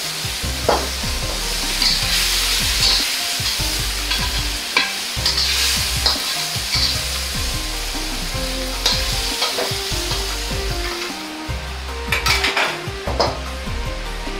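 Halved cherry tomatoes sizzling in a hot carbon-steel wok while a metal ladle stirs and scrapes them, with sharp knocks of the ladle against the wok, the loudest near the end.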